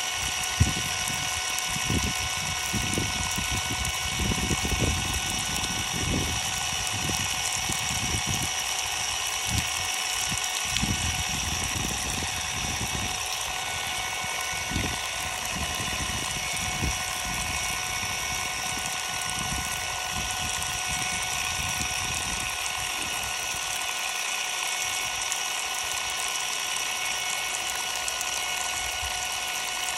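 Ryobi cordless power tool's electric motor running unloaded with a steady, high multi-tone whine, while water spray hisses and splashes over the tool and its bare battery board. Irregular low thuds come and go, mostly in the first half.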